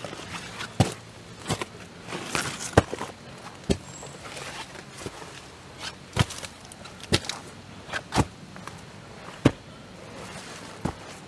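Footsteps through dry leaf litter and soil: irregular sharp crunching steps about once a second, with leaves rustling in between.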